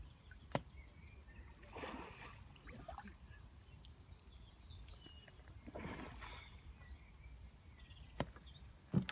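Outdoor ambience with a steady low wind rumble, two short bursts of water sloshing about two and six seconds in, and a few sharp clicks, the last near the end.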